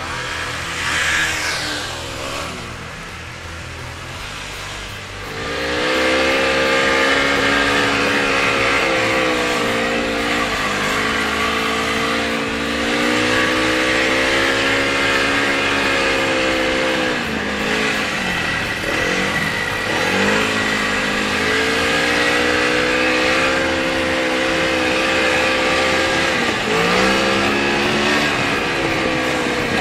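A snowmobile engine passes by. Then, from about five seconds in, a snowmobile engine runs loud and close under way, its pitch dipping and rising again a few times as the speed changes.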